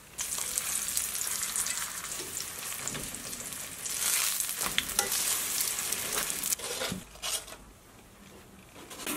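Hot oil sizzling under a stuffed flatbread (bolani) frying in a stainless steel pan. The sizzle begins abruptly and dies down near the end.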